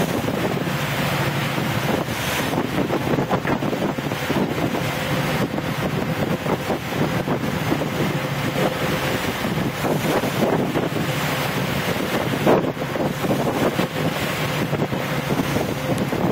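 Wind buffeting the microphone on a boat under way, over water rushing past the hull and the steady hum of the boat's motor. A brief thump about twelve seconds in.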